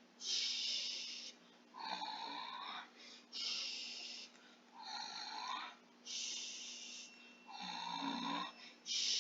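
Cartoon-style snoring in a slow, even rhythm: a rasping snore alternates with a long hissing breath, about three snore-and-hiss cycles.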